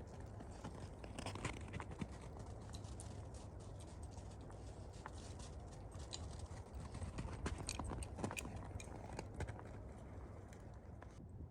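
Irregular light clicks and taps, a few of them sharper, over a steady low rumble.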